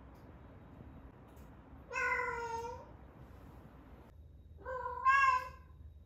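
A young female tabby cat in heat gives two long, drawn-out yowling calls, each about a second long, the second louder than the first. This is estrus calling.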